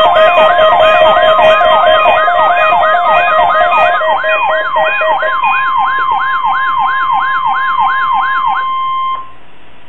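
NOAA Weather Radio's steady 1050 Hz warning alarm tone sounding together with weather alert receiver alarms: a rapid rising-and-falling siren about three sweeps a second, plus a beeping tone. The siren stops near the end and the alarm tone cuts off a moment later, leaving a steady radio hiss.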